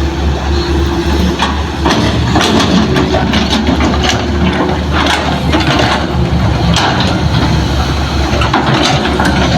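Heavy diesel engine of an excavator running steadily under work, with irregular knocks and clatter of soil and rock being dug and loaded.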